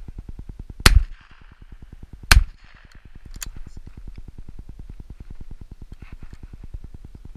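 Two shots from a 20-bore Beretta Silver Pigeon over-and-under shotgun, about a second and a half apart, one from each barrel at a bird. A fainter sharp crack follows about a second after the second shot, over a low rumble.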